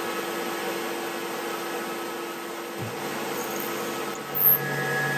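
Tormach CNC mill spindle running steadily with a small drill bit boring into hard high-carbon steel, a steady whine with several tones. About three seconds in the pitch shifts and a lower hum sets in, with a brief louder squeal about a second later. The drill is overheating in the hard steel, which the machinist calls "cooking".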